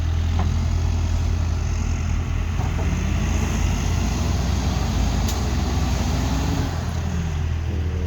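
Diesel engines of heavy equipment (a loader and a backhoe) running hard, pushing a crawler; one engine's pitch rises and falls from a few seconds in until near the end as it works under load.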